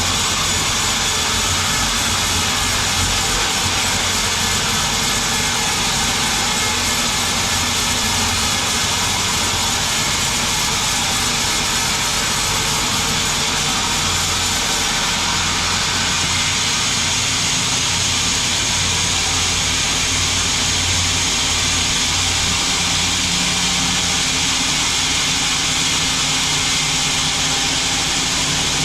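Sawmill band saw running steadily, its motor humming under a loud, even rush of blade noise as it saws a log into boards.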